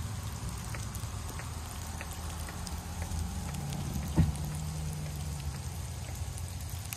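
Plow truck's engine running with a low drone as it drives off, over the scattered ticking of falling sleet. One sharp thump about four seconds in.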